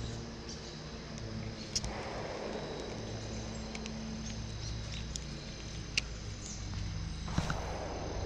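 Footsteps of slide sandals on a muddy creek bank over a steady low hum and a faint, steady high insect drone, with a few sharp clicks about two, six and seven seconds in.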